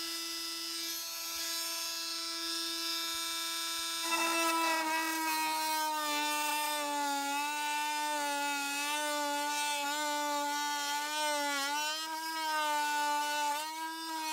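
Oscillating multi-tool with a coarse-tooth, Japanese-handsaw-style blade: a steady whine running free, then plunge-cutting into a softwood board from about four seconds in. Under load the whine drops slightly in pitch and wavers.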